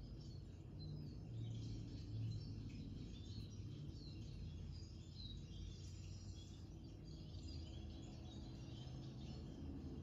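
Small birds chirping and twittering in a busy, continuous chatter of short calls, played from a bird video on a TV, with a steady low hum underneath.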